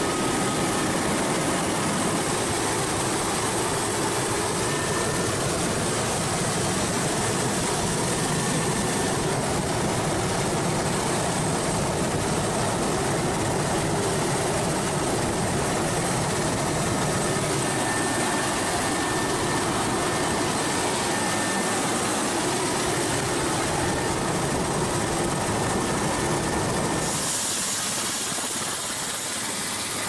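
Steady, dense engine noise of a rescue craft running during a night sea search, with faint steady high whines above it. About three seconds before the end it cuts abruptly to a thinner hiss.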